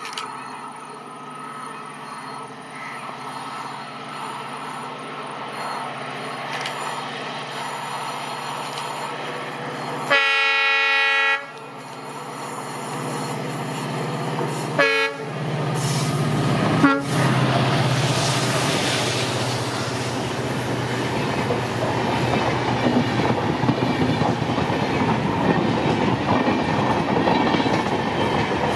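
EMD WDP4D diesel-electric locomotive's 16-cylinder two-stroke engine running as it approaches slowly, growing louder. About ten seconds in it sounds its horn in one blast of just over a second, and two short sharp sounds follow a few seconds later. Then the locomotive passes and the coaches roll by with wheel clatter.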